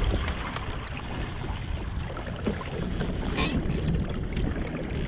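Wind rumbling on the microphone over water lapping against a kayak hull, with a light knock about three and a half seconds in.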